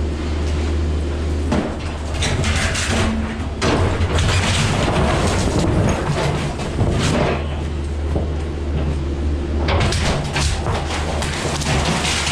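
Cat 305 mini excavator's diesel engine running steadily while the machine smashes in a house wall, with repeated crashes and crunches of breaking wood and debris, heard from inside the house. The biggest crashes come a couple of seconds in, again around the middle, and once more near the end.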